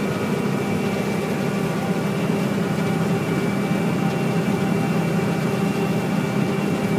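Combine harvester running steadily while it harvests soybeans, heard from inside the cab: a constant low drone with a few faint, steady whining tones above it.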